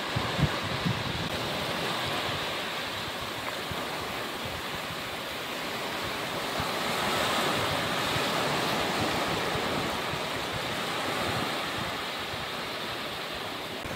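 Shallow surf washing in over wet sand at the water's edge: a steady rushing wash that grows a little louder around the middle.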